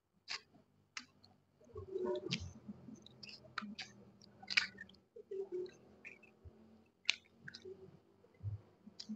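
Close-miked chewing and mouth smacking while eating roast chicken pulled off the bone by hand, heard as an irregular string of short smacks and clicks.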